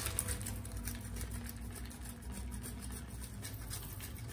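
Handheld fine rasp grater scraping a block of cheese, a faint rasping in short repeated strokes.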